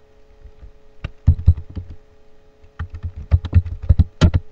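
Typing on a computer keyboard: keystrokes in two quick runs, the loudest strokes near the end, over a faint steady hum.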